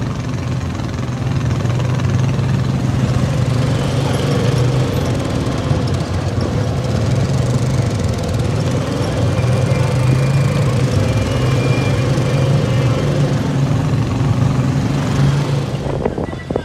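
Vehicle engine running steadily at an even pitch, with a broad noise over it; it drops away near the end.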